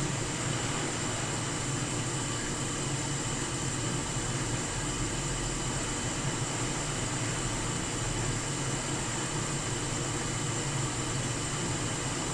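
Steady fan hiss from bench repair equipment, with a faint constant high whine and a low hum underneath.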